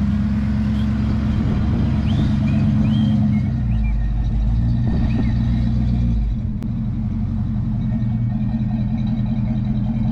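Truck engine running steadily at low revs, with a deeper rumble for a couple of seconds near the middle and an abrupt change in tone about two-thirds of the way through.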